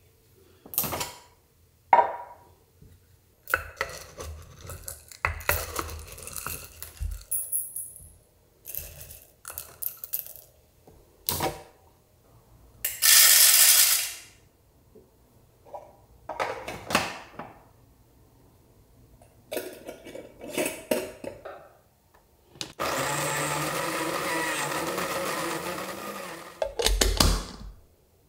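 Coffee being prepared by hand: a glass jar's metal lid and the jar clinking and knocking, then a scoop of roasted coffee beans poured rattling into an electric coffee grinder's hopper about halfway through. Near the end the grinder's motor runs steadily for about four seconds, grinding the beans, followed by a knock.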